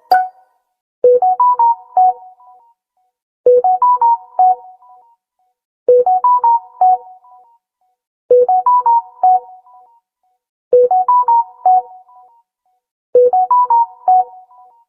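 Samsung smartphone notification tone: a short melodic phrase of a few quick notes, played six times over with a pause of about a second between repeats.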